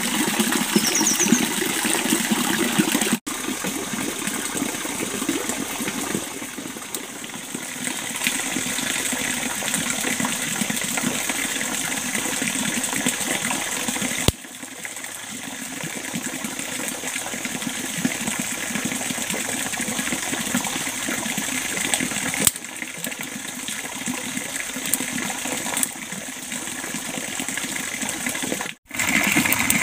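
Steady rushing of running water, with no pitch or rhythm, dropping out abruptly for an instant about three, fourteen and twenty-nine seconds in.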